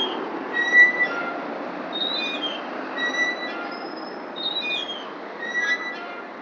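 Metal playground swing squeaking at its pivots as it swings back and forth, a high squeal on each pass. The squeals alternate between a level one and a falling one, about one every second and a quarter.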